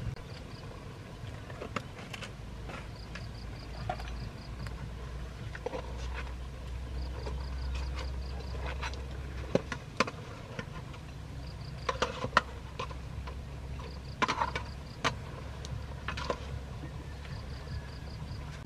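An insect chirping in short trills of rapid pulses that repeat every few seconds, over a steady low rumble, with scattered sharp clicks and rustles, most of them in the second half.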